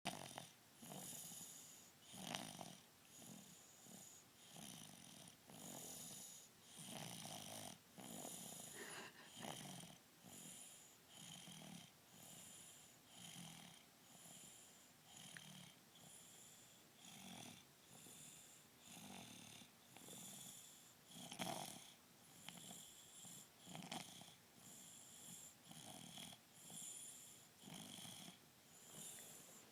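A sleeping baby snoring softly with each breath in a long, even run. Two breaths come out as sharper, louder snorts.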